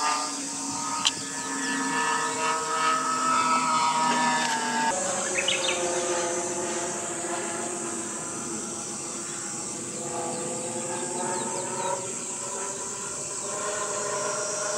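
Radio-controlled twin-engine Cessna 310 scale model in flight, its two engines droning with a pitch that slides slowly down and then shifts higher about five seconds in as it banks around. A few short high chirps sound over it near the start and about five seconds in.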